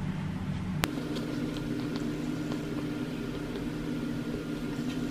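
A steady low hum with a faint higher tone, starting with a click about a second in. Over it come faint light ticks of a wooden stick stirring a thick mixture in a small plastic cup.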